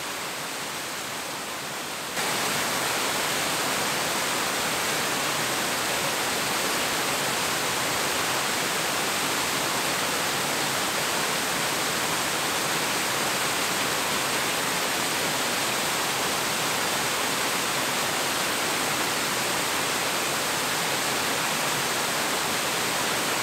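Steady rush of waterfalls pouring into a pool, a step louder from about two seconds in.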